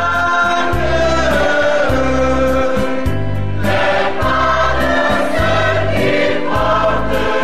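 Background music: a choir singing sustained chords in a religious style over a low bass line that steps from note to note.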